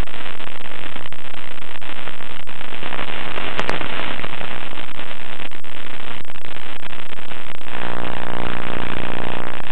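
Loud, steady static hiss on the audio of an analog FPV video link from a model plane. There is a brief crackle about three and a half seconds in, and a steady buzz joins near the end.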